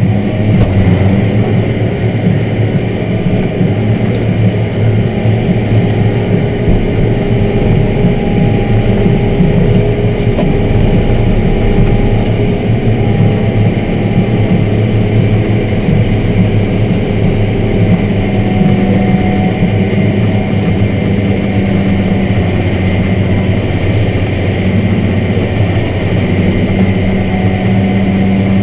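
Engine of a tractor pulling dirt pans (scrapers), running loud and steady, heard from inside the cab.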